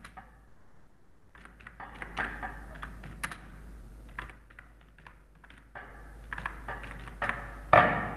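Typing on a computer keyboard: a run of irregular keystrokes, with one louder stroke near the end.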